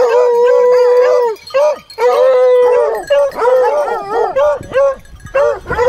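A pack of running hounds baying and howling together, long held howls broken by many short yelps from several dogs at once.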